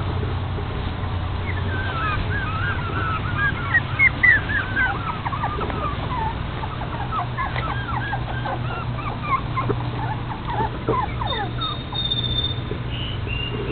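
Toy Fox Terrier puppies squeaking and whimpering in many short, high-pitched cries that overlap, busiest in the first half and tailing off near the end, over a steady low hum.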